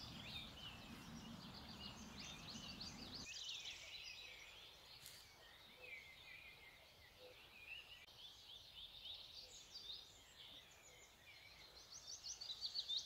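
Faint dawn chorus of songbirds: many short chirps, trills and whistles overlapping, getting louder near the end. A low background rush underneath stops abruptly about three seconds in.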